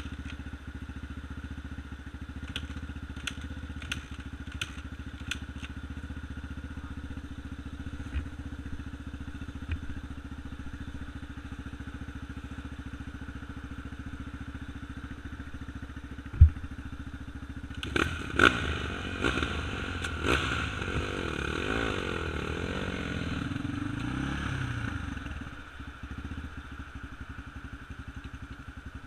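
Off-road engine idling steadily close by, with a quick run of sharp clicks a few seconds in. A single loud thump comes about halfway, then an engine revs up and down with clattering for several seconds before dropping back to idle.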